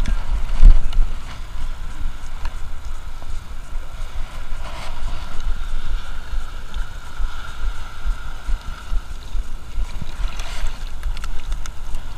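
Wind buffeting the microphone in an uneven low rumble, with shallow sea water lapping around a wading angler.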